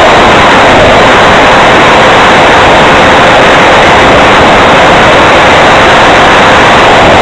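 Onboard sound of a 70mm electric ducted fan RC plane in flight: a steady, loud, overloaded rush of fan and wind noise.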